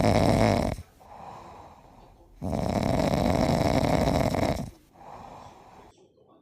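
Snoring in loud, even cycles: a long snore ends about a second in, then a softer breath out, a second long snore, and another soft breath out.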